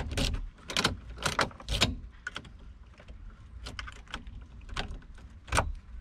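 A car key being pushed into and pulled out of a new ignition lock cylinder: a series of irregular metal clicks and scrapes, with the key ring jingling. The new cylinder is still rough to take the key.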